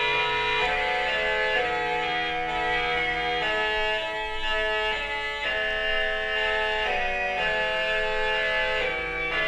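Pipe organ reed stop, the Récit's Ranquette 16 of the Schwenkedel organ, played an octave up at 8-foot pitch with its tremulant, in slow four-voice counterpoint. The tone is soft and reedy yet rich in overtones, with sustained chords shifting about every second.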